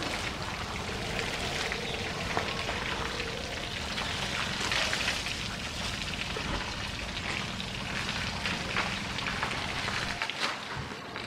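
Water from a hose spraying onto an elephant's hide and splashing on a wet concrete floor: a steady hiss of spray and splatter.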